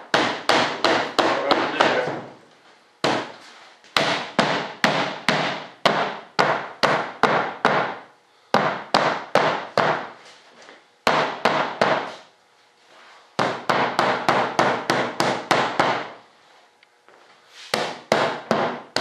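A mallet tapping on a thick fuselage mold in quick runs of about four to five taps a second, with short pauses between runs. The taps knock the molded fuselage part loose from the mold.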